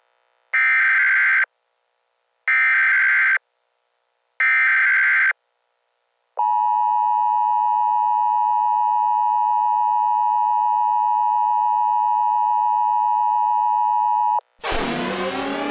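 Emergency Alert System tones: three short, buzzy SAME header data bursts about two seconds apart, then the steady two-tone EAS attention signal held for about eight seconds. Just before the end a new loud, sweeping siren-like sound starts.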